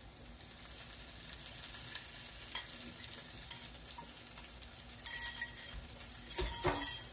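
Shredded chicken tipped from a bowl into a hot frying pan of sautéed onions, the pan frying with a steady low sizzle. Two louder bursts of sizzling and scraping come near the end.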